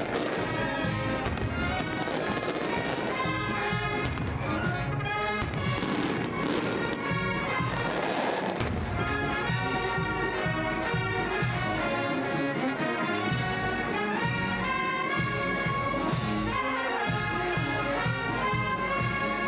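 Brass marching band playing a march, with trumpets, trombones, saxophones and sousaphones sounding held chords. Sharp percussive cracks run through it, thickest in the first half.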